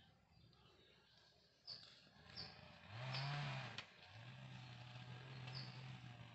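A bird's short high chirps, repeated about five times at uneven intervals. About three seconds in, a louder low sound under a second long rises and falls in pitch. A steady low hum runs through the last couple of seconds.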